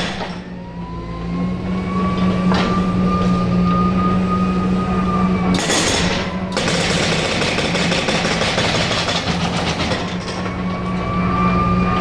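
Excavator-mounted hydraulic breaker hammering concrete with rapid blows in stretches. The excavator's diesel engine runs steadily underneath, with a hydraulic whine that rises and falls twice.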